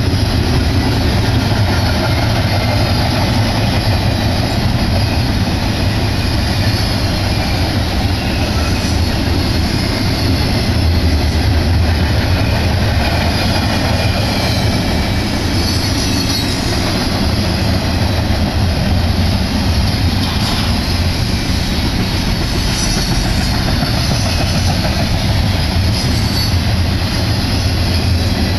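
Double-stack intermodal container cars of a fast BNSF freight train passing, their steel wheels on the rails making a steady, loud rumble.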